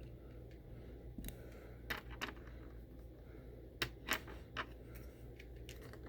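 Steady hum of an electric fan, with a few light clicks and rustles from handling a small bag and slime, the clearest about two seconds in and again around four seconds in.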